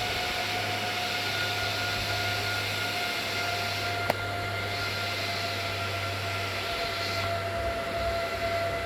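HP ProLiant ML350 Gen6 server's cooling fans running with a steady whir and a few steady whining tones, with a single sharp click about four seconds in.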